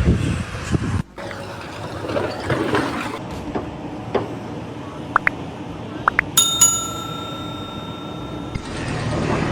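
A few small clicks, then a bright metallic ring like a bell that holds steady for about two seconds and cuts off.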